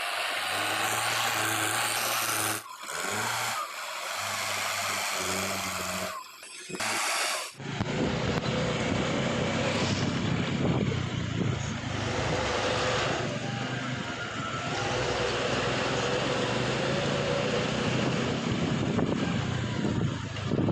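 A steady pitched hum that comes in short blocks for the first seven seconds or so, then a heavy diesel engine of a JCB 3DX backhoe loader running steadily at work, cut off suddenly at the end.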